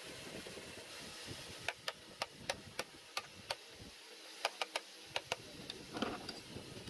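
A small hammer tapping on the metal back plate of a snail-type car horn: about a dozen light, sharp metallic taps in two short runs, then a duller knock near the end.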